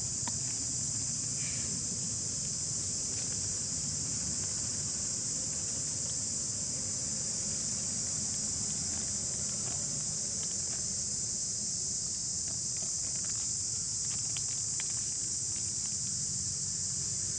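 A steady, high-pitched chorus of insects, unbroken throughout, with a few faint ticks and rustles over it.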